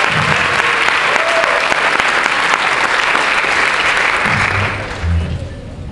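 Audience applauding, dying down near the end as a few low notes sound.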